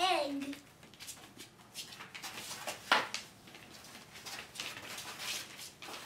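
Puppies moving about and playing on plastic puppy pads in a pen: scattered light rustles and clicks, with one sharper sound about three seconds in. A child's voice trails off at the very start.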